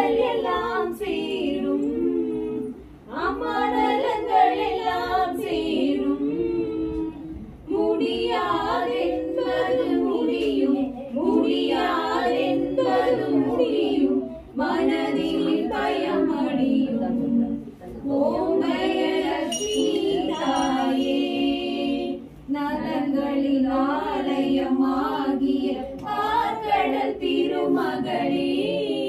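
Women's voices singing a devotional song for the pooja without instruments, in sung phrases of a few seconds with short pauses between them.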